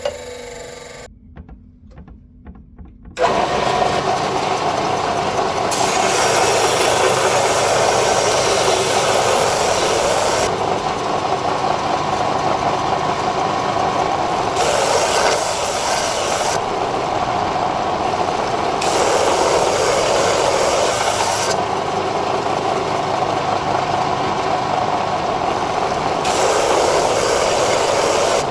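Loud, rough rasping of a tool working on metal engine parts. It starts about three seconds in, after a short near-quiet pause, and its character shifts every few seconds.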